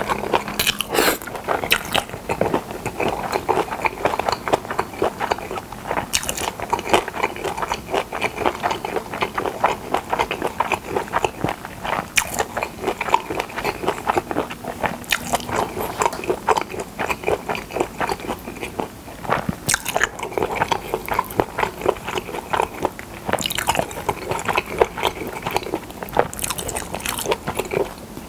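Close-miked chewing and biting of pressed boiled pork slices (pyeonyuk): a steady run of many small mouth clicks.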